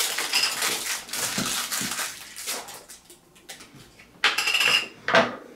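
Rustling and clacking of a plastic figure and its packaging being handled, with two louder crinkling bursts near the end.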